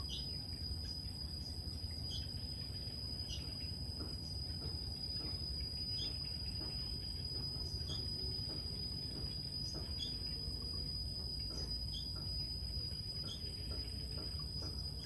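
Steady, high-pitched insect drone with short bird chirps every second or two, over a low background rumble.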